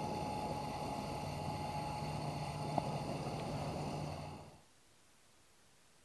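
Pressurized camp lanterns, one a Coleman, burning with a steady hiss and a faint hum, with a small click about three seconds in. The hiss cuts off suddenly about four and a half seconds in, leaving near silence.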